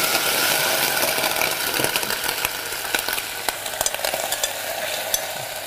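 Shallots sizzling in a hot pot just after a splash of white wine and vinegar has gone in. The hiss fades slowly as the liquid cooks off, with a few sharp clicks of a utensil against the pot.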